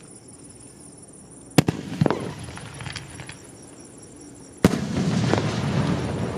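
Aerial sky-shot fireworks going off: a sharp bang about a second and a half in, another half a second later, then a third bang near the end followed by a loud, sustained crackle.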